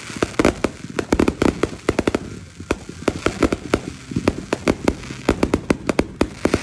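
Fireworks going off: a rapid, irregular run of sharp bangs and pops, several a second.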